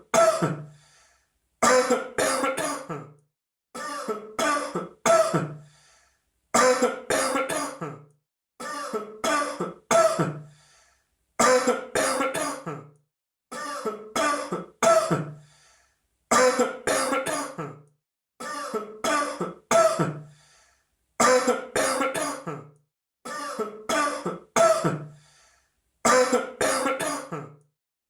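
A person coughing in short bouts of three quick coughs. A bout comes about every two and a half seconds, with silence between.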